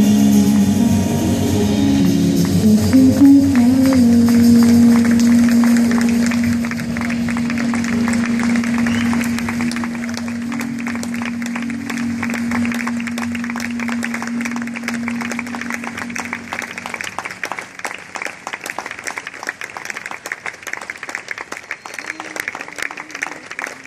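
A live jazz band with vocals, piano, double bass and drums finishes a song on one long held final note, which fades out about two-thirds of the way in. Audience applause starts a few seconds in and keeps going after the music stops.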